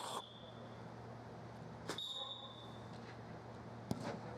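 Referee's whistle blown twice as short steady blasts, the first ending just under a second in and the second sounding from about two to three seconds in, with three sharp knocks spaced about two seconds apart.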